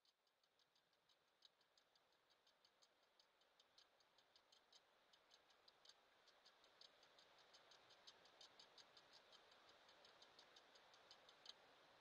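Faint wind noise on an outdoor camera microphone, fading in and growing, with a rapid series of short, high-pitched ticking chirps from a calling insect, about three to four a second, that stop near the end.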